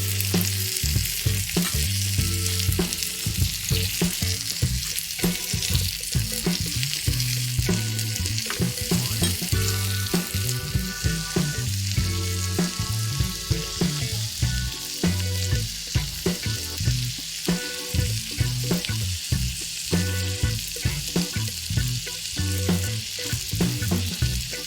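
Oil sizzling steadily in a miniature frying pan, with many short clicks of a small utensil stirring and scraping the food.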